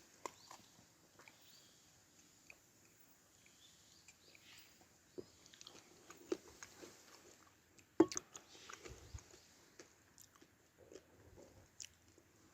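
Quiet eating sounds: soft chewing and small clicks of utensils, with one sharper knock about eight seconds in.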